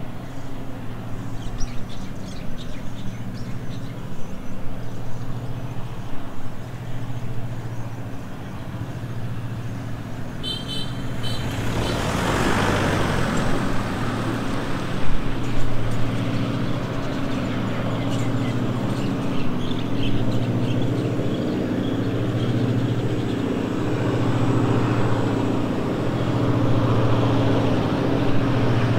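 An engine running steadily with a low hum that swells and fades, under outdoor traffic noise that grows louder from about twelve seconds in.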